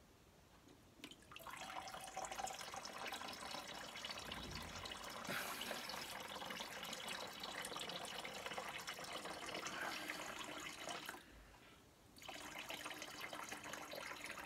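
A stream of urine running into a chamber pot, steady for about ten seconds, stopping briefly, then starting again near the end.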